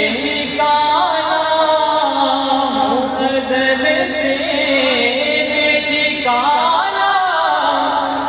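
A man's solo voice chanting a naat (Urdu devotional poem in praise of the Prophet) into a microphone, in long held notes with wavering ornaments. A new rising phrase begins about six seconds in.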